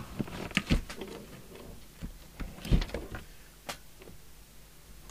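A metal radio chassis being handled and turned up on a workbench: a run of clicks and knocks with a heavier thump near the middle and a sharp click after it, then only faint ticks.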